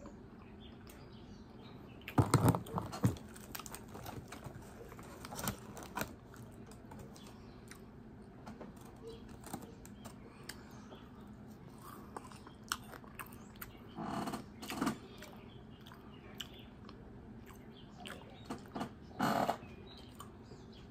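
A person biting and chewing crispy fried catfish close to the microphone: loud crunchy bites about two to three seconds in, then quieter chewing and mouth clicks, with two short louder mouth sounds near the middle and near the end.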